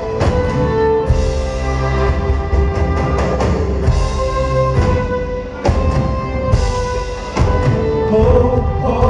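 Live folk-rock band playing with no vocals: fiddle and guitars holding sustained notes over a drum kit, with heavy drum hits and cymbal crashes cutting through every few seconds.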